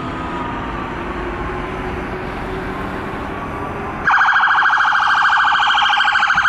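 Emergency vehicle sirens in street traffic. A faint siren tone slides slowly down, then at about four seconds a much louder electronic siren switches on abruptly in a fast, rapidly pulsing yelp.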